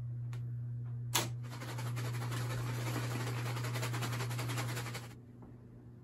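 A brass door knob turned and the door latch clicking as a door opens, with a sharp click about a second in, followed by a few seconds of rustling noise that stops suddenly near the end. A steady low hum runs underneath.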